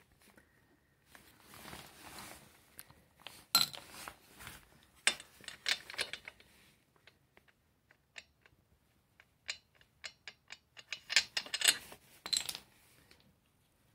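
A ratchet wrench clicking in quick runs of short, evenly spaced ticks as a spark plug is snugged into a Stihl HS45 hedge trimmer, mixed with handling knocks and rustles. The steadiest run of clicks comes a little past halfway.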